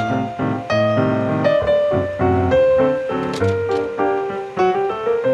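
Instrumental background music with a melody of quick, separate notes over a steady accompaniment.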